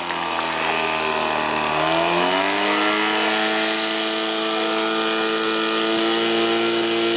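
Portable fire-pump engine running hard, pumping water through the hose line; its pitch sags about two seconds in, then climbs back and holds steady.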